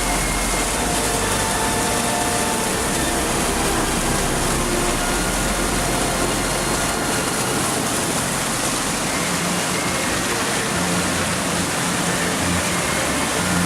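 Mountain torrent rushing loudly and steadily, a dense unbroken roar of white water.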